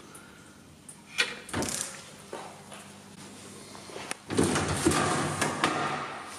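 A few sharp metal knocks about a second in, then a louder sliding, rattling noise lasting about two seconds, as parts are handled at a cylinder honing machine, over a faint steady machine hum.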